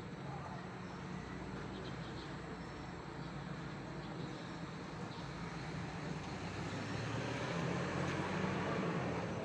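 Arc welding outdoors: a steady crackling hiss from the arc over a low machine hum, getting a little louder near the end.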